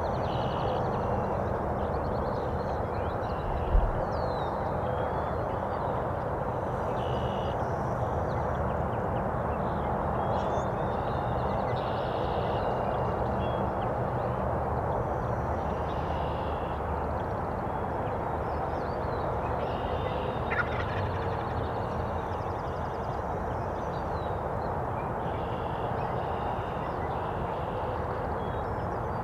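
Wild turkey gobbler gobbling several times, each gobble a short rattling call about a second long, spaced a few seconds apart, over a steady background hiss. One low thump about four seconds in.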